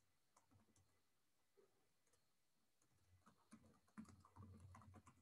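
Faint typing on a computer keyboard: scattered key clicks, most of them in the second half.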